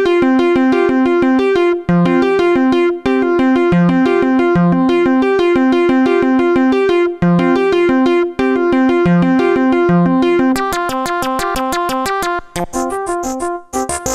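Circuit-bent Roland D-110 sound module playing a repeating arpeggiated sequence with a keyboard-like synth patch. About two-thirds of the way through the tone turns harsher and clickier, and near the end it breaks up into glitchy stutters with brief dropouts as the bend points alter the patch.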